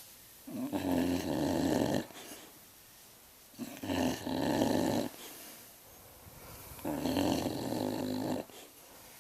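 A sleeping pet snoring in slow, even breaths: three long snores, each about a second and a half, coming roughly every three seconds, with quieter breathing between.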